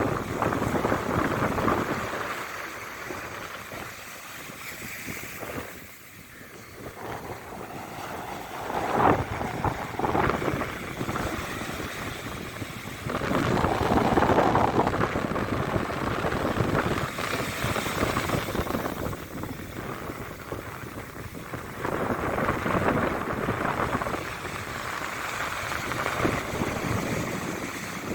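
Sea waves breaking and washing up on a beach: a rushing noise that swells and fades every few seconds, with wind buffeting the microphone.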